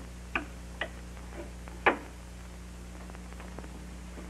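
Earpiece of an old wall telephone hung back on its hook with a click, followed by a few more knocks, the loudest about two seconds in, over a steady low hum.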